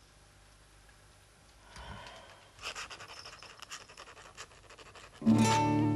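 A feather quill scratching on paper in short, irregular strokes, then an acoustic guitar strikes up loudly about five seconds in.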